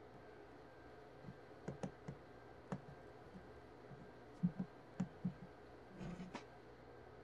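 Faint irregular clicks and light taps, about a dozen over five seconds, some in quick pairs, with a short scuffing sound near the end.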